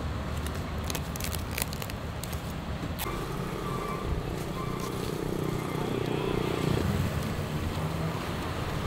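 Plastic cling film crackling in short clicks for about three seconds, then the steady sound of passing road traffic, cars and motorbikes running.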